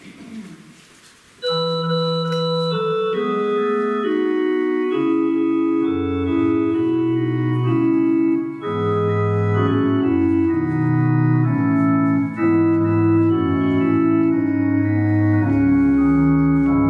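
Organ playing a hymn tune in slow, sustained chords. It starts about a second and a half in, and a low bass line joins at around six seconds.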